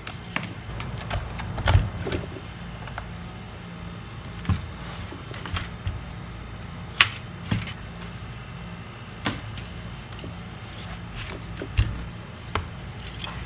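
Scattered light clicks and knocks of a MacBook Pro laptop and small repair tools being handled on a workbench, a second or two apart, over a steady low hum.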